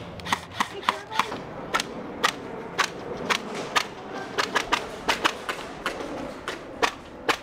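Airsoft guns firing single shots in an irregular string of sharp snaps, a couple a second, some closer and louder than others.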